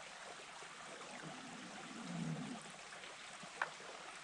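Faint, steady rushing background noise, with a brief low hum about two seconds in and a single soft click near the end.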